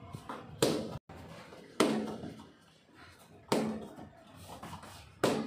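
Taekwondo kicks smacking into a handheld kick paddle: four sharp slaps, roughly one every second and a half to two seconds.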